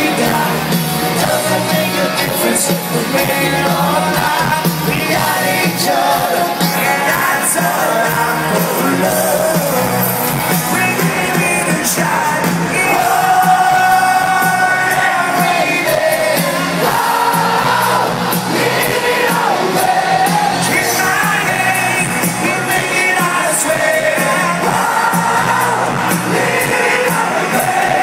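Live rock band playing loudly with a lead vocalist singing, heard from among the arena audience, with crowd shouts and whoops mixed in.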